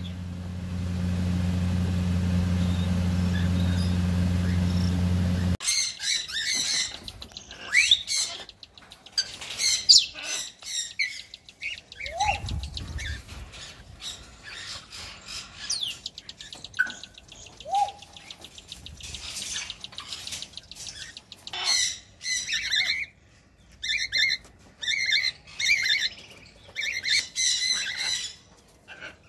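A steady low hum for the first five or so seconds that cuts off abruptly, then cockatiels chirping and calling, with a run of short repeated calls, about two a second, near the end.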